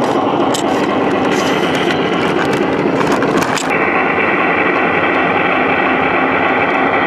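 Large-scale garden railway cars rolling along the track, heard from a camera car riding in the train: a steady rolling rumble with a run of sharp clicks over the first few seconds, as the wheels pass rail joints and a switch.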